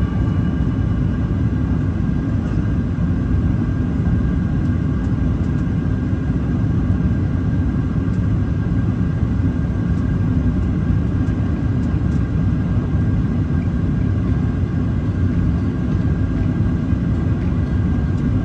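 Steady cabin noise inside a Boeing 737-800 on descent: the drone of its CFM56 turbofan engines and the rush of airflow, heavy in the low end, with a faint steady whine above it.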